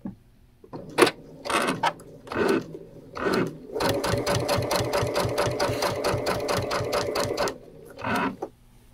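Brother sewing machine with a MuVit dual-feed foot, stitching binding onto a quilt. It makes a few brief starts, then runs steadily at about eight stitches a second and stops shortly before the end.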